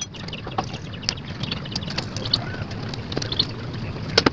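Light scattered clicks and knocks of a Yamaha Jupiter Z's aluminium magneto cover being worked loose from the crankcase by hand, while engine oil trickles into a steel bowl below.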